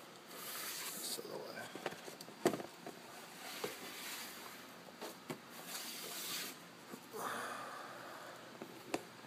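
Handling noise: scattered clicks and knocks, the sharpest about two and a half seconds in, with short rustles as plastic tubs and the phone are moved about, and a few footsteps.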